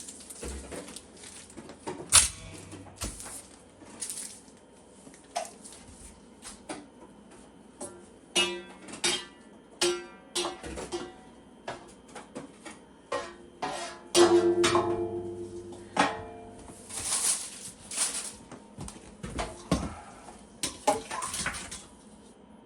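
Metal pans and utensils clattering and clinking at irregular intervals, some knocks ringing briefly.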